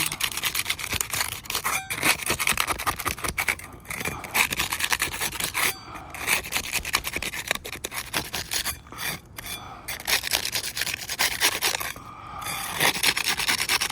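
A spatula working under asphalt shingles to break their sealant strips: a rough, crackly scraping that goes on in spells, with a few brief pauses.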